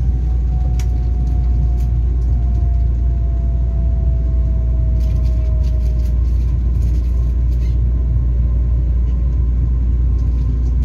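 Ride noise inside a Taiwan Railways EMU3000 electric train: a deep steady running rumble under a thin motor whine from its Hitachi SiC-VVVF traction system that falls slowly in pitch as the train slows toward a station. A few faint clicks come about halfway through.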